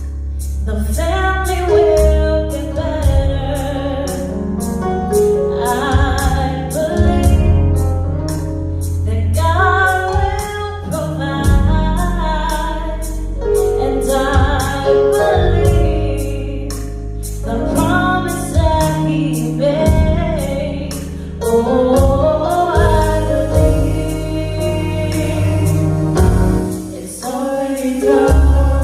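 Worship song: singing over a band with deep, sustained bass and a steady beat of light high ticks about twice a second.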